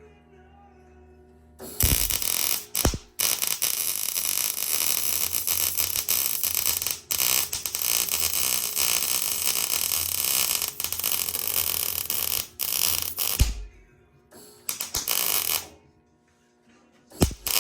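Electric welder arc crackling in one long run of about eleven seconds with a few brief breaks, then two short bursts near the end. It is joining a 3/16-inch bar to a thin tube of sheet-metal gauge, a join where the arc can burn a hole through the thin side.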